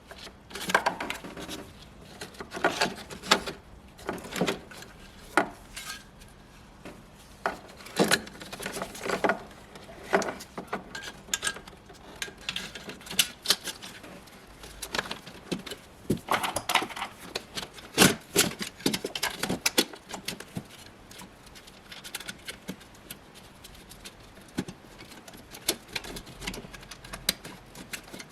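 Hand tools and metal parts clinking and knocking in irregular, scattered clicks and taps while the fusible link is fitted and the alternator removed.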